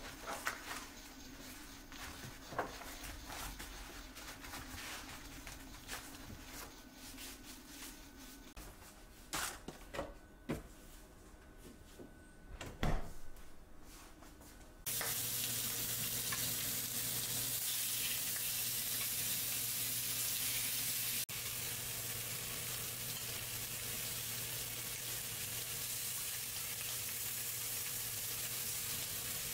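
Soft rustling and crinkling of asparagus being wrapped in paper towel and a cloth food wrap, with a few sharp knocks. About halfway in, pork neck slices start sizzling steadily in a stainless steel frying pan, the loudest sound.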